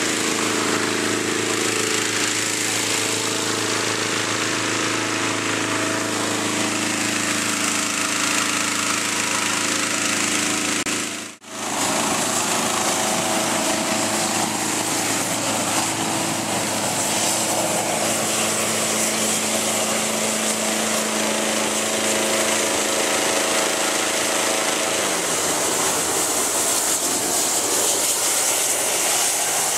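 Hot air balloon inflation: a small-engine inflator fan runs steadily. After a brief cut about a third of the way in, the balloon's propane burner fires continuously into the envelope, a loud rushing hiss with the fan still running under it.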